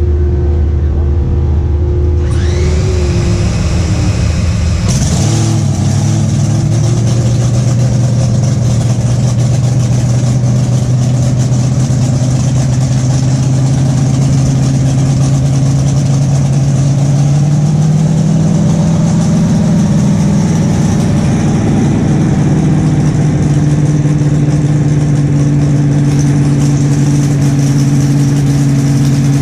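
A/Fuel nitro dragster engine being started for a warm-up. A whine rises about two seconds in, the engine catches about five seconds in and settles into a steady idle, and the idle pitch rises about two-thirds of the way through and holds there.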